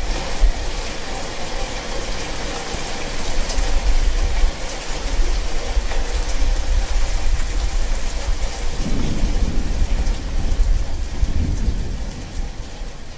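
Steady rain falling, with a deep rumble of thunder underneath that swells a little past halfway and again near the end.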